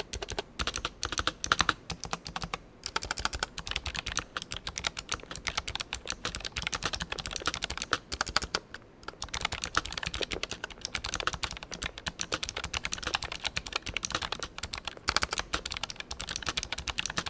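ASUS ROG Claymore II mechanical keyboard with ROG RX Blue clicky optical switches, typed on fast and continuously in a dense stream of key clicks, with two brief pauses.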